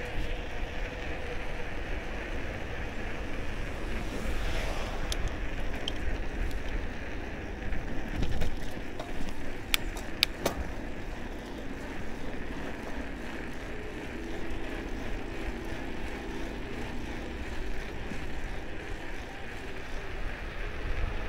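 Wind and tyre noise of a bicycle being ridden, heard as a steady low rumble and hiss on an action camera's microphone, with a few sharp clicks about ten seconds in.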